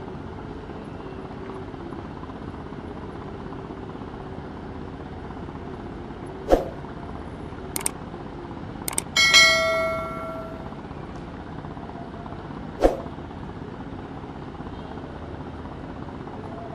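Steady low engine rumble from boat traffic on the river, overlaid with a subscribe-button sound effect: a few sharp mouse clicks and a short bell-like ding just after the middle. Another click comes near the end.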